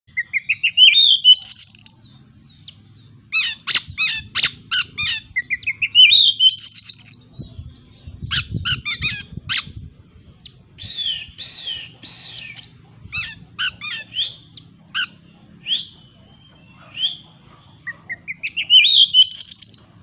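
Oriental magpie-robin (kacer) singing in bouts with pauses. The song mixes phrases mimicked from small birds: a fast trill rising in pitch, given three times, bursts of sharp clicking notes, and short whistled notes.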